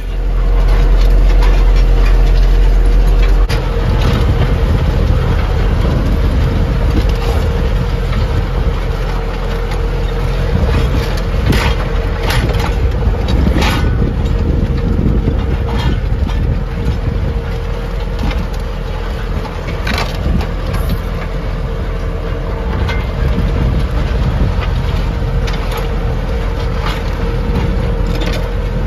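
Lovol 504 tractor's diesel engine running steadily under load while pulling a plough, heard from on board, with a heavier low rumble for the first three seconds or so and scattered sharp knocks.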